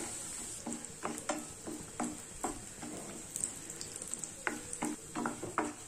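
Cashew nuts frying in hot ghee in a non-stick pan: a faint steady sizzle, with the short scrapes and taps of a wooden spatula stirring them at irregular moments.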